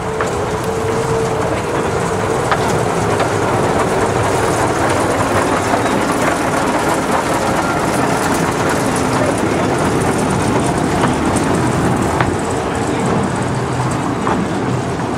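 Small narrow-gauge locomotive's engine running steadily as it hauls a carriage past at low speed, with a few sharp clicks along the way.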